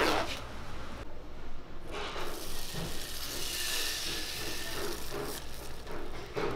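Crepe batter sizzling in a hot frying pan as it is ladled in and swirled: a steady hiss lasting a few seconds, after a short crinkle of plastic wrap at the start.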